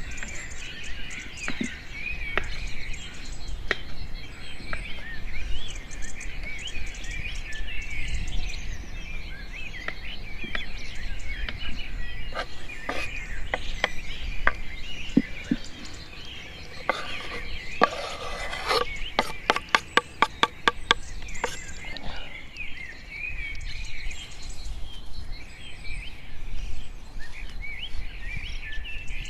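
Many small birds chirping continuously. Scattered knocks run through it, and about two-thirds of the way through comes a quick, even run of about ten sharp taps, roughly four a second.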